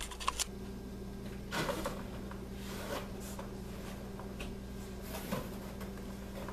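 Cardboard playhouse scraping, rustling and knocking as a person crawls inside and pulls its cardboard door shut: a few short scrapes and bumps over a faint steady hum.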